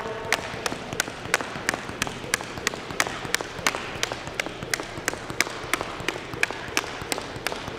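Jump rope slapping a hardwood gym floor in a fast, even rhythm of about three sharp clicks a second, mixed with the skipper's landings and a soccer ball being kept up off his foot.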